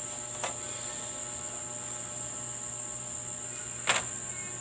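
Steady electrical hum with a thin high whine over it, broken by a small click about half a second in and a sharp, louder click near the end.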